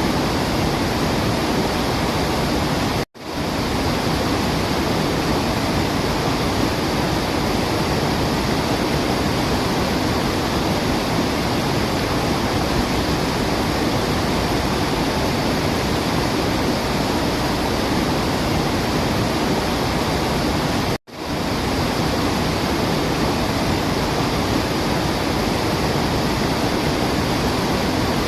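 Waterfall, a steady dense rush of falling water. The sound cuts out abruptly twice, about 3 seconds in and again about 21 seconds in, each gap lasting a split second before the rush returns: edit or loop points in the recording.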